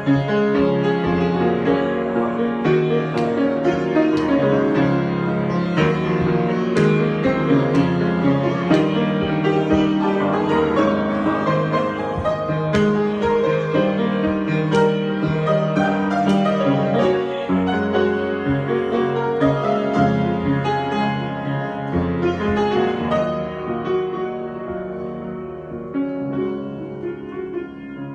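Solo piano improvisation, a continuous flow of notes and chords that grows softer over the last few seconds.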